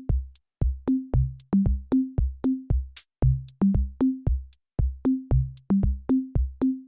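Background music: an electronic drum-machine beat with short pitched bass thumps and clicks, about three hits a second.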